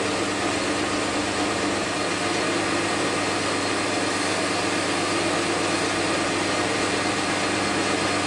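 Metal lathe running steadily with a constant motor and gear hum, while its cutting tool grooves a spinning bar of 6061 aluminium to cut witness marks.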